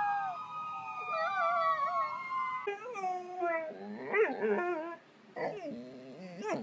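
A beagle howling in one long drawn-out note that falls slowly in pitch. About three seconds in, a different dog takes over with a run of short, wavering whining howls.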